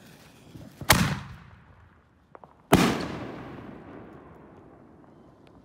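Two loud aerial firework bursts about two seconds apart, each bang trailing off in a long echo, then a few faint crackles near the end.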